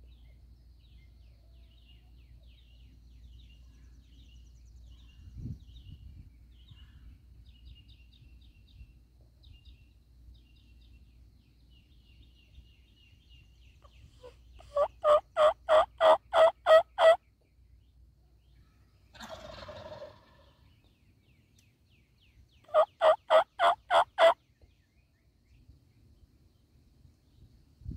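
Wild turkey yelping: a run of about ten evenly spaced yelps, then a short raspy call, then a shorter run of about six yelps. Faint high chirping of small birds comes before.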